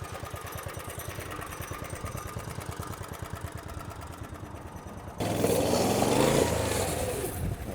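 Small gas engine of a motorized ride-on shop stool idling with an even pulse, then revved hard about five seconds in, the pitch rising and falling back.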